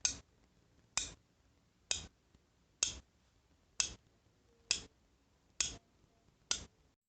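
Eight sharp ticks or taps, evenly spaced at about one a second, each dying away quickly.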